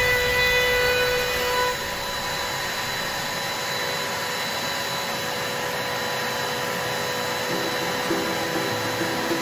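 Steady whine and hiss of a running workshop electric motor, with a few light clinks near the end.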